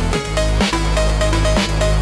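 Phonk music: a deep, sustained sub-bass under a melody of short repeated notes, with a sharp snare-like hit about once a second.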